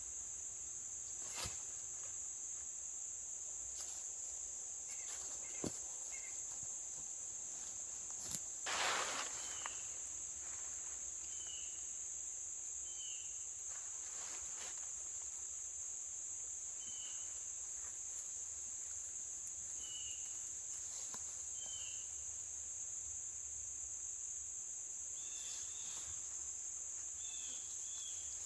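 Steady high-pitched insect chorus droning without pause, with short chirps every second or two over it. A few brief rustles and knocks, the loudest about nine seconds in.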